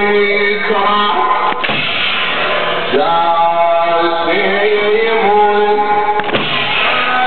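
A man chanting a Muharram latmiyya lament in long, bending sung lines, with two sharp strikes about five seconds apart.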